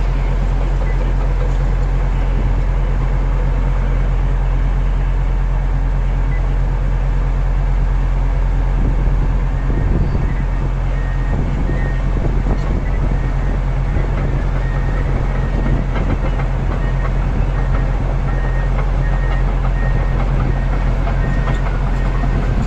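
A large crawler bulldozer's diesel engine running steadily, a deep, even drone. From about halfway through, a faint short beep repeats at a regular pace.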